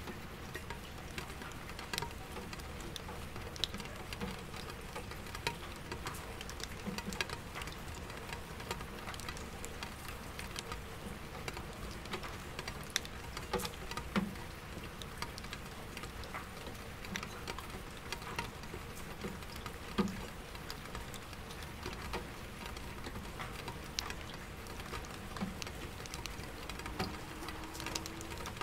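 Raindrops tapping irregularly on window glass and plinking in an empty bucket, over a steady low hum of city traffic.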